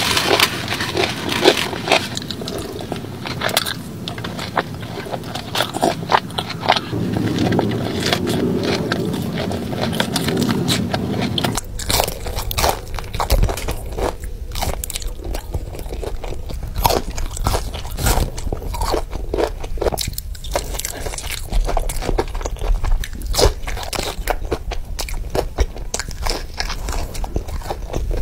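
Close-miked eating: crisp crunching bites and chewing of fried breaded chicken tenders, many sharp crunches a second. The background changes about a third of the way in.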